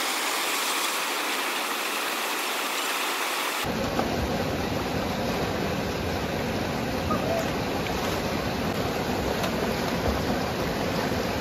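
Shallow mountain river rushing over rocks in a steady hiss of water. About four seconds in the sound changes abruptly and gains a deep rumble.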